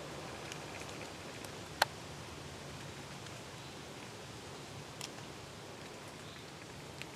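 Quiet outdoor background hiss, with one sharp click about two seconds in and two fainter clicks later on.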